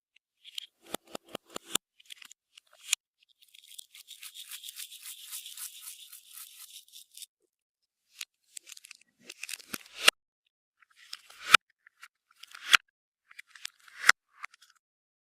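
Clear slime being worked by hand: sticky clicks and crackling, then several sharp pops in the second half.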